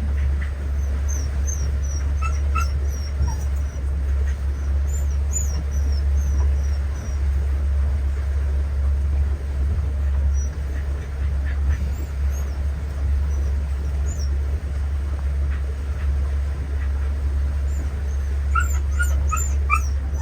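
A dog whining over and over in short, high-pitched whimpers, upset and wanting to get off the boat. Underneath runs the boat's steady, low engine drone.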